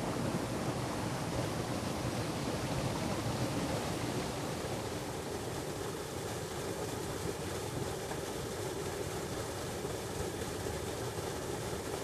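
Steady rushing of flowing water in a forest stream, a little quieter from about five seconds in.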